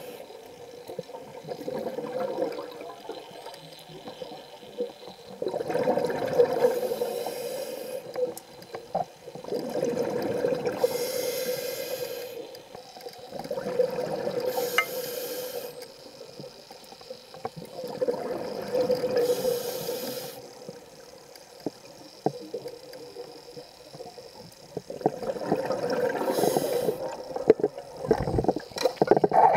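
Scuba diver breathing through a regulator underwater: a hiss on each inhale and a longer gurgling rush of exhaled bubbles, repeating every four seconds or so.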